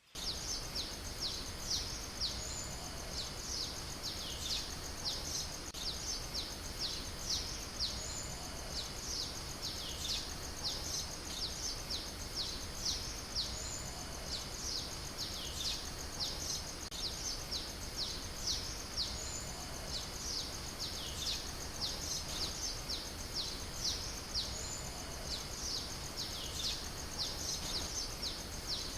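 Birds singing, a dense run of short, quick, high chirps, each falling in pitch. A longer falling note comes in about every five and a half seconds, over a faint steady low background noise.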